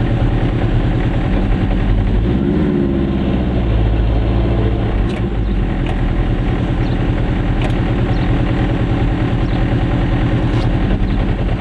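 Goggomobil's air-cooled two-stroke twin engine running at low speed in slow traffic, its revs rising briefly about two seconds in.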